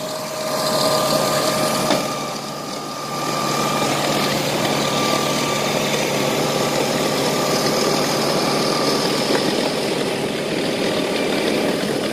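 Large tractor running with its front-mounted snowblower working, engine and blower making a steady mechanical drone with a faint whine.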